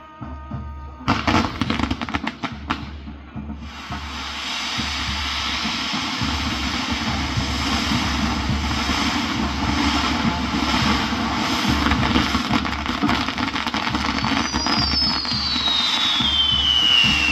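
Castillo fireworks tower going off: a sudden run of sharp bangs and crackles about a second in, then a loud, steady hissing with dense crackling as the tower's fireworks burn. Near the end a whistling firework glides down in pitch and then back up.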